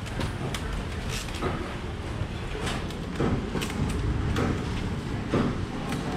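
A run of short scraping strokes as a small knife peels the skin off a round green fruit held in the hand, over a steady low background hum.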